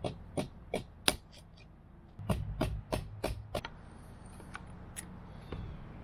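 Sharp metal clicks and knocks of locking pliers being worked onto a rusted-in Woodruff key on an outboard's steel driveshaft. Single clicks come first, then a denser cluster of knocks about two seconds in, then a few more clicks near the end.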